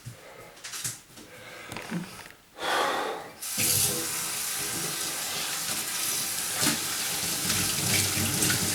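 Kitchen tap: after some faint handling sounds and a short gush about two and a half seconds in, the tap is turned on about three and a half seconds in and runs steadily into the sink.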